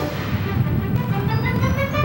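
Music with many held tones over a busy low end.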